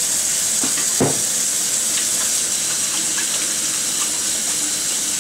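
Kitchen tap running in a steady hiss while hands are washed under it, with a soft knock about a second in.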